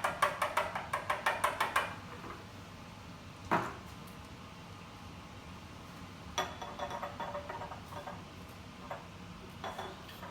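Aerosol shaving cream can being shaken, its mixing ball rattling fast inside for about two seconds. A single knock comes about three and a half seconds in, and a second, weaker bout of rattling follows a few seconds later.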